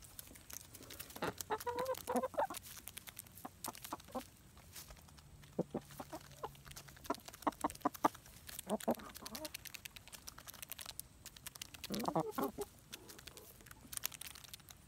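Buff Orpington hens clucking in three short bouts, with many sharp clicks of beaks pecking at sunflower seeds in between.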